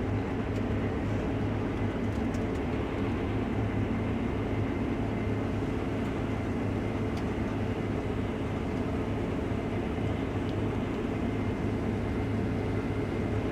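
Case IH Axial-Flow combine running steadily while harvesting wheat: a constant, even drone of engine and machinery with a low hum.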